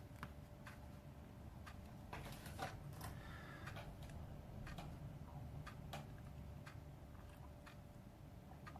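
Faint, irregular light clicks and taps of a screwdriver and small parts being handled while searching for a tiny screw, over a low steady hum.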